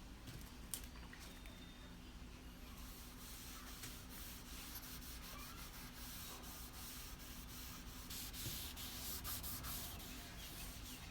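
A cloth rubbing by hand over a finely sanded wooden surface, with a faint, continuous scratchy rubbing full of small scuffs that grows a little louder about eight seconds in.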